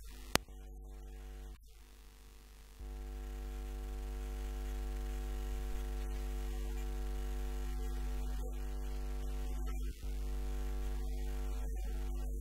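Steady electrical mains hum: a low, unchanging buzz with no tune in it. It gets louder about three seconds in and cuts out for an instant near ten seconds, and there is a single click near the start.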